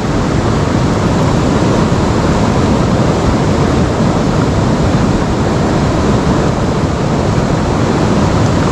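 Shallow rocky river flowing over stones: a steady, loud rushing hiss of running water.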